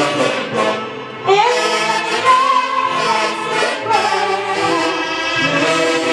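Live Peruvian orchestra with a saxophone section, violins and drum kit playing a muliza. The band drops back briefly about a second in, then comes in loud again.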